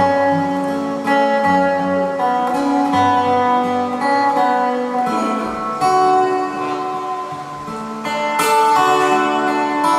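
Acoustic guitar music: a melody played over plucked and strummed chords.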